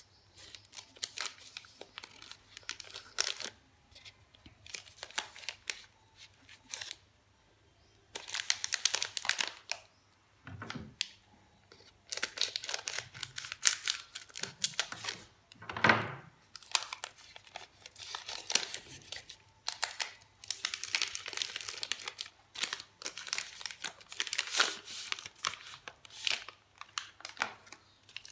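Plastic chocolate-bar wrappers, Cadbury Dairy Milk Silk Bubbly, crinkling and being torn open by hand in irregular bursts of crackling rustle. There are a couple of soft knocks, the loudest about halfway through.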